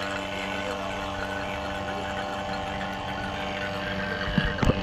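Electric rotary vacuum pump running steadily with a low hum, pulling a vacuum on a newly installed split air conditioner's refrigerant lines. A couple of short knocks come near the end.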